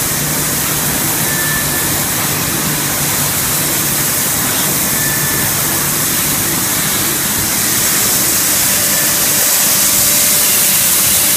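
Plastic film shredding and pelletizing recycling line running steadily: continuous machine noise with a strong hiss over a low hum, growing a little louder about two-thirds of the way in.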